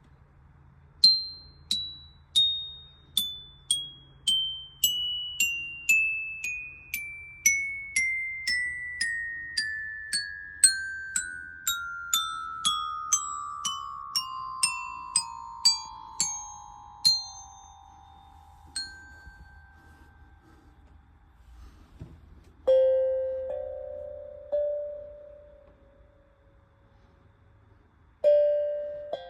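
A set of tuned metal chimes struck one note at a time in a slow descending run of about two dozen ringing notes, each pitch a step lower than the last. After a pause come a few single, louder and lower notes that ring out.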